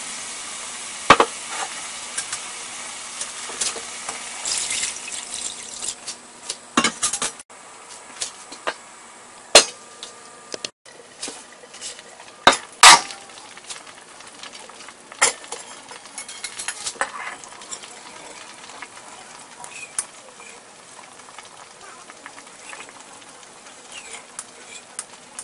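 Braising liquid sizzling and simmering around beef in a metal wok, with scattered sharp clinks of metal utensils against the wok.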